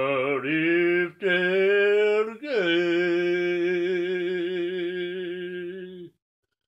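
A man singing unaccompanied: two short phrases, then a long held note with vibrato that ends about six seconds in.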